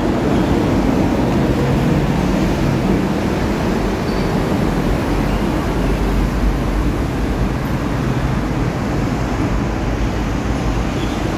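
Steady road traffic passing close by: a continuous rumble and hiss of cars and vans on the road.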